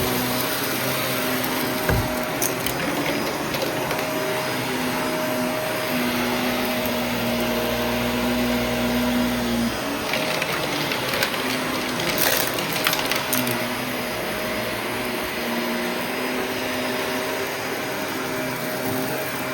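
Shark vacuum cleaner running steadily, a motor hum under a rush of suction. Bits of the test mess rattle as they are sucked up around the middle.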